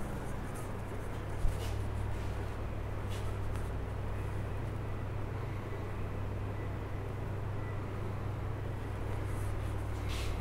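A steady low hum, with a soft knock about one and a half seconds in and a few faint footfalls or scuffs while walking along a corridor.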